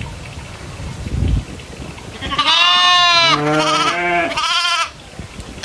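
Goats bleating: a run of about three bleats starting a little over two seconds in, after a brief low rumble.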